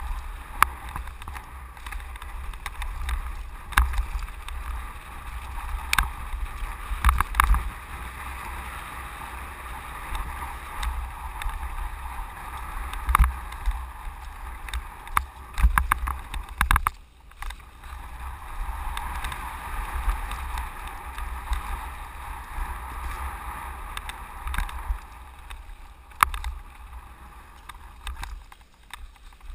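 Mountain bike rolling fast down a gravel and dirt downhill trail, heard from a camera on the rider: a steady rush of wind and tyre noise with frequent sharp knocks and rattles as the bike goes over rocks and bumps, briefly quieter about 17 seconds in.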